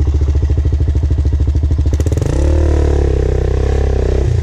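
Quad bike engine idling with an even chug, then revved hard for about two seconds as the rider tries to drive the stuck machine free, then dropping back to idle.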